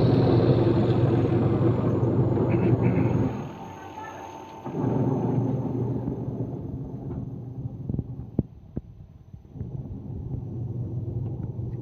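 Washing machine spin motor running with a low, steady hum, cutting out about three seconds in and starting again a second or so later, then running on more quietly with a few sharp ticks.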